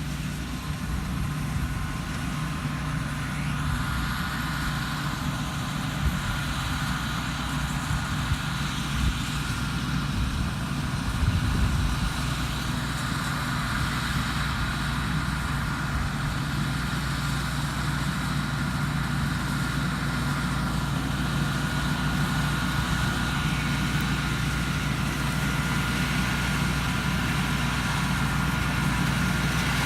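Thai Seng Yont rice combine harvester running steadily while harvesting lodged rice: a continuous engine drone with a thin, steady high whine over it, growing slightly louder near the end.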